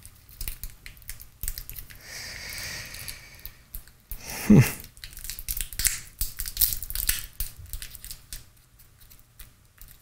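Fingers handling a small tape-wrapped transformer and its lead wires: scattered small clicks and crackles, a rustle about two seconds in, and a louder knock about four and a half seconds in.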